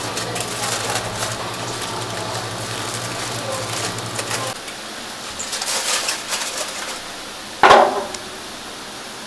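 Aluminium foil crinkling as a foil packet is folded and pinched shut by hand, over a steady low hum that stops about halfway through. More crinkling follows, then a single loud knock as the packet is set down into a metal wok.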